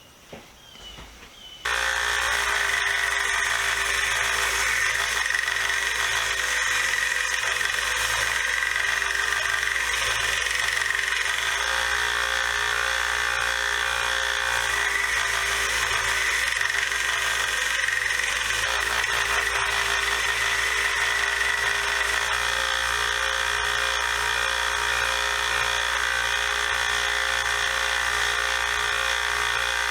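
1x30 belt sander switching on about two seconds in and running steadily, its 150-grit belt grinding the pitting off a steel screwdriver blade.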